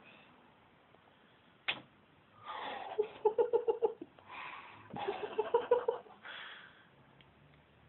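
A sharp click, then a person laughing in two wheezy bursts of quick, rhythmic ha-ha pulses, each about a second and a half long.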